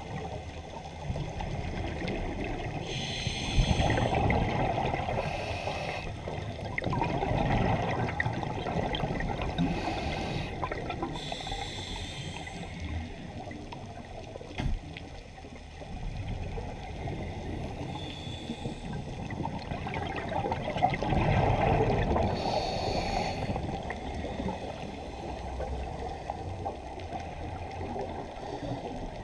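A scuba diver's breathing heard underwater: regulator exhaust bubbles gurgling in several long swells, with short hisses of air in between.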